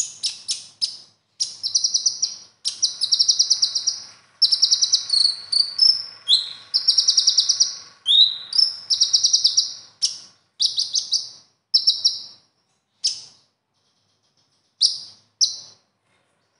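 Male Van Hasselt's sunbird (kolibri ninja) singing: rapid high-pitched trilled phrases, dense for about the first ten seconds, then sparser short bursts with a pause of a second or so before two last quick bursts.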